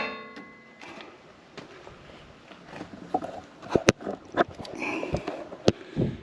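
Scattered sharp clicks and knocks of hands working the metal tailgate table and its support cables, with a short metallic ring at the start.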